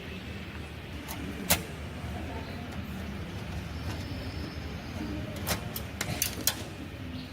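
Sharp clicks and knocks from handling a desktop computer cabinet during disassembly: a loud one about a second and a half in and a quick cluster of four near the end, over a steady low hum.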